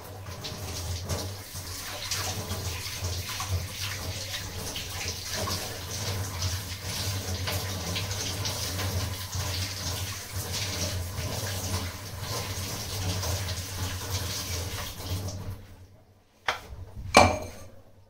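Kitchen tap water running steadily into a steel sink while green chillies are rinsed under it by hand. The water stops near the end, followed by two short knocks.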